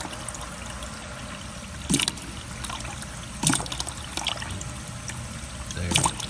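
Water running from a hose on a newly connected supply line, sputtering with three sudden spurts of trapped air: the line is being purged of air.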